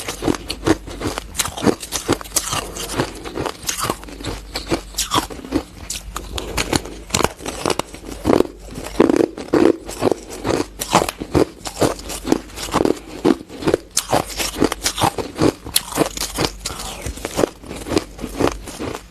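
Hard ice being bitten and chewed close to the microphone: rapid, irregular crunches, several a second, with no pause.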